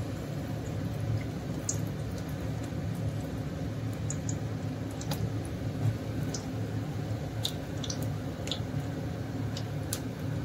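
Batter-coated bread pakora deep-frying in hot oil: a steady sizzle with scattered small crackles and pops, over a low steady hum.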